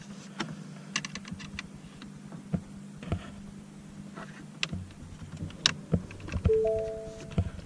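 Scattered small clicks and taps of plastic dash trim and clips being handled and pressed, over a steady low hum. Near the end come a few short held tones.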